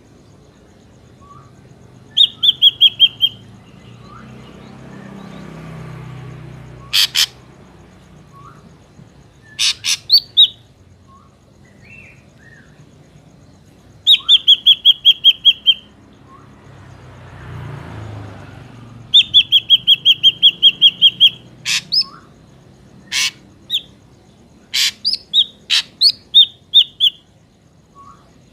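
Drongo calling: quick runs of rapid, evenly spaced ringing notes, sharp harsh clicks and a few soft short whistles, coming in bouts with short gaps. A faint low rumble swells and fades twice underneath.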